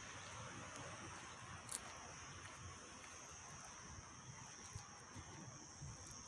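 Faint outdoor ambience dominated by a steady, high-pitched drone of insects. A single sharp click sounds a little under two seconds in.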